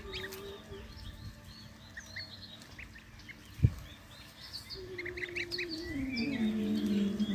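Goslings peeping in short, high chirps, with one sharp knock a little past halfway. Soft music fades in near the end.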